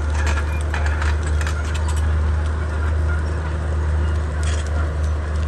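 Komatsu D31P bulldozer's diesel engine running with a steady low drone. Sharp metallic clinks and knocks come in a cluster over the first two seconds and again about four and a half seconds in.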